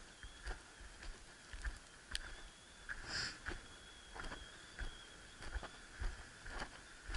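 Footsteps in snow, about two steps a second, each with a dull low thump on the microphone. A faint steady high tone runs underneath, and a short hiss comes about three seconds in.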